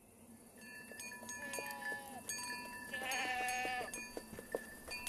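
Goats bleating as the herd moves off: a short bleat about a second and a half in and a longer, wavering one about three seconds in. Small bells ring and clink among scattered light clatters.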